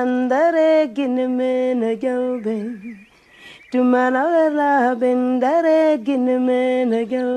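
A single voice singing unaccompanied in long held notes, in two phrases with a short pause about three seconds in.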